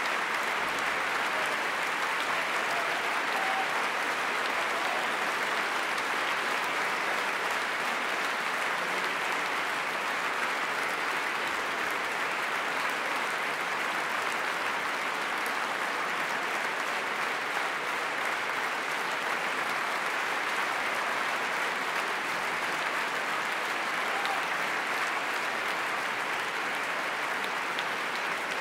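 Large concert audience applauding steadily, a long unbroken ovation.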